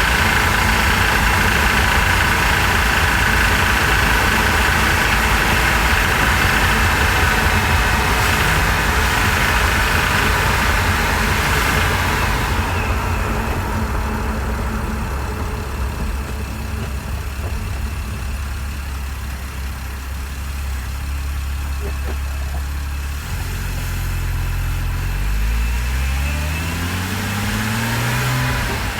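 Porsche Cayman S 3.4-litre flat-six engine running under way, heard close up with the engine cover off. About halfway through it quietens, and near the end its pitch climbs steadily as it accelerates. The owner is chasing a knocking noise that this rebuilt engine makes once warm.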